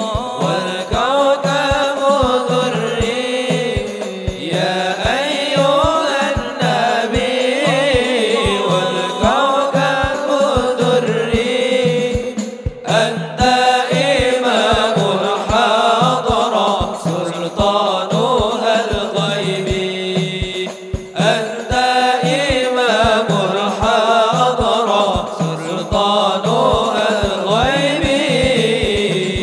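Sholawat sung by voices with a wavering, ornamented melody over a hadroh ensemble: rebana frame drums and a bass drum keep a steady beat of a few strikes a second.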